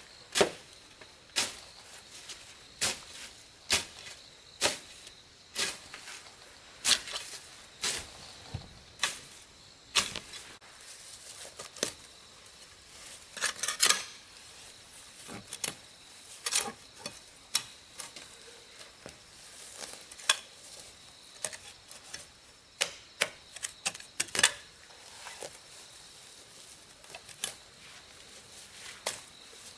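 Irregular sharp taps and clicks of hand work, roughly one or two a second, some louder than others, over a faint steady high-pitched tone.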